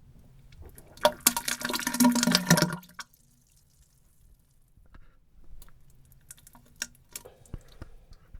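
Diarrhoea sound effect: about a second in comes a loud, wet spluttering burst with a low tone under it, lasting about two seconds. It is followed by a few quieter scattered drips and splats.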